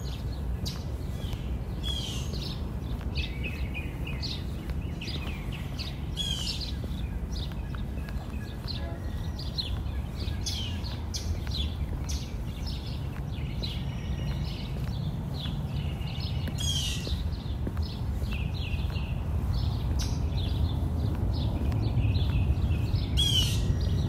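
Several birds chirping and calling together, with a loud downward-sweeping call repeated about four times, over a steady low rumble.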